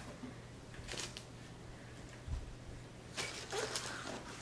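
Faint rustling and light clicks of items and packaging being handled, with a single soft low thump a little past two seconds in.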